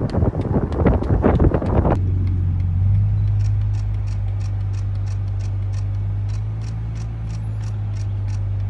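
Wind buffeting the microphone for about two seconds, then a steady low drone from the camera vehicle, with faint even ticks about three a second over it.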